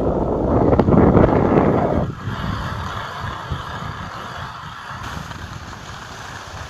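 Wind buffeting the phone's microphone while skiing downhill, loudest for about the first two seconds, then a quieter steady hiss of skis sliding on snow.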